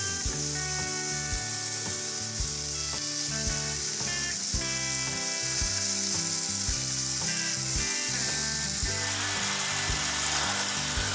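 Marinated paneer cubes sizzling as they fry in hot ghee in a kadai, the hiss growing fuller about nine seconds in, over instrumental background music.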